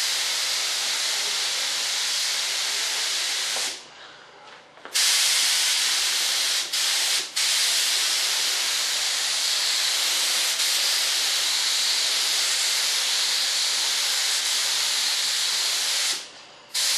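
Compressed-air spray gun with a gravity-feed cup hissing steadily. It is set to high air pressure for a super fine mist and is laying down a mist coat of water-based PVA mold release. The trigger is let off for about a second around four seconds in, broken twice very briefly a little later, and let off again just before the end.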